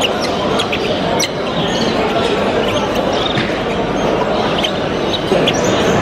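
Many caged show birds chirping and squawking in short, high calls over a steady babble of crowd chatter.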